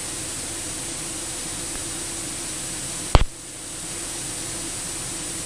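Steady hiss of static on the cockpit radio and intercom audio while the frequency is quiet, with one sharp click about three seconds in.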